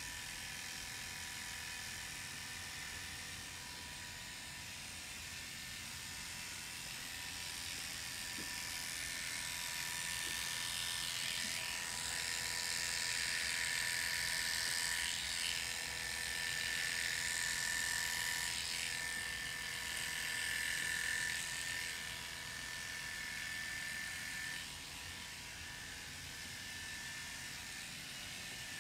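Electric hair clippers buzzing steadily as they clip the donor area of the scalp short before FUE graft harvesting, louder with more cutting hiss for about ten seconds in the middle.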